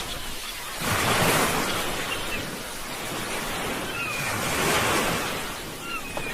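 Sea waves washing on the shore, the surf swelling about a second in and again about five seconds in, with a couple of faint high chirps near the end.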